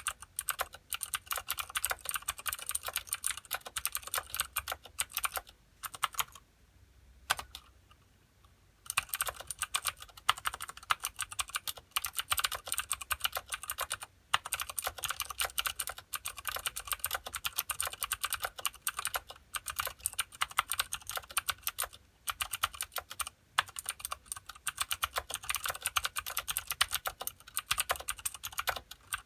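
Fast continuous typing on a Filco Minila mechanical keyboard with clicky Cherry MX Blue switches and thin ABS keycaps (likely Tai Hao), a dense run of sharp clicks. The typing stops for about two seconds a quarter of the way through, then carries on.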